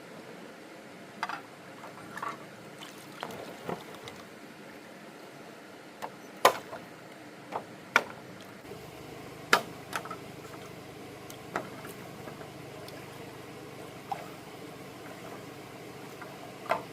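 About a dozen sharp knocks and clacks at uneven intervals over a steady low hiss, with a faint low hum joining about halfway.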